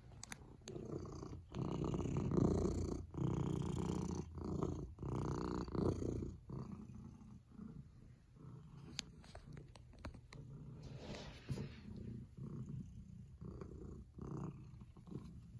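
Domestic cat purring in a steady rhythm of in-and-out cycles while being stroked. The purr is loudest in the first few seconds, then goes on more softly.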